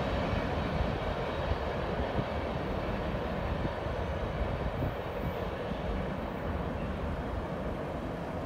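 Freight train climbing a grade, a steady rumble slowly fading as it moves away.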